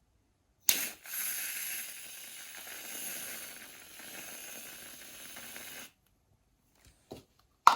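Aerosol whipped-cream can spraying cream onto a drink: a sudden start, then a steady high hiss for about five seconds that cuts off sharply. A few small clicks follow, and a sharp knock comes right at the end.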